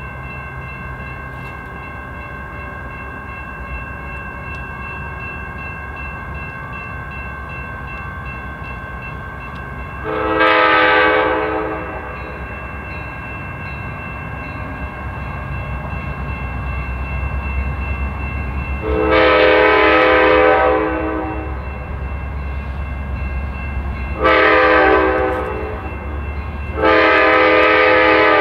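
Locomotive air horn sounding the grade-crossing signal, long, long, short, long, as a multi-note chord. Under it runs the train's steady low rumble, which grows slightly toward the middle; the last long blast is still sounding at the end.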